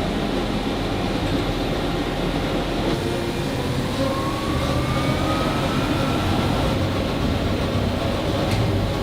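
Industrial laundry machinery running with a steady, dense mechanical noise, and a faint whine rising slowly in pitch about four seconds in.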